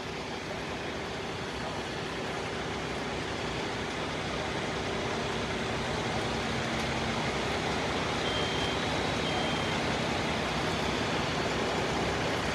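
Steady rushing noise of running machinery and street traffic, growing slowly louder, with two short high beeps in the middle.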